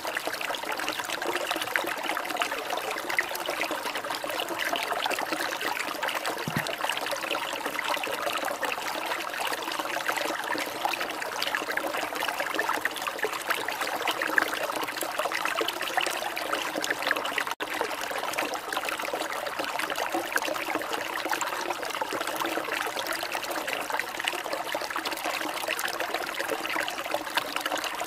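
Steady trickling and babbling water, like a small stream, with a momentary dropout about two-thirds of the way through.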